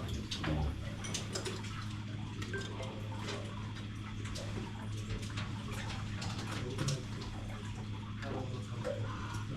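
A steady low hum under scattered small clicks and drips of water, with a couple of slightly louder knocks about half a second in and near the seven-second mark.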